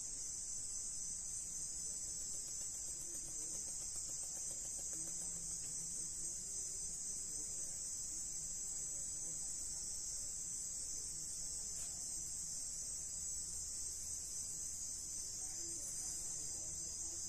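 Steady, high-pitched chorus of night insects.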